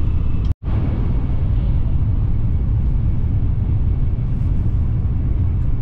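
Steady low rumble of a train, cut off for an instant about half a second in.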